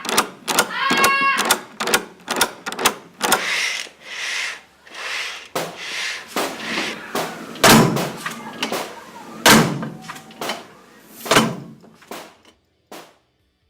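Sound effects made with everyday objects: a quick run of sharp clicks and knocks, some hissing swishes, then three heavy thuds about two seconds apart, in the manner of a door banging shut.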